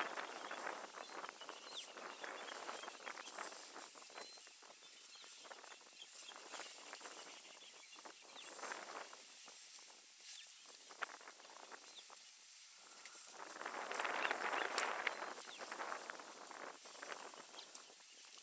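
Elephants shifting and stepping in grass and scrub: irregular rustling and crackling of vegetation with scattered light snaps, swelling louder about three-quarters of the way through.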